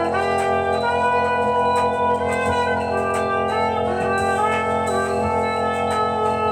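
Music: steady held keyboard chords with a melody line of sustained notes moving in steps above them.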